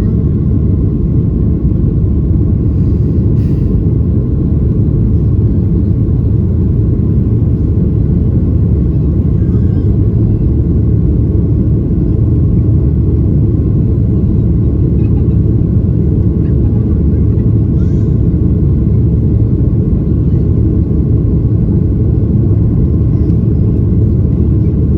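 Steady low rumble inside the cabin of a Boeing 737-800 climbing out after takeoff: its CFM56-7B turbofan engines at climb power together with airflow over the fuselage.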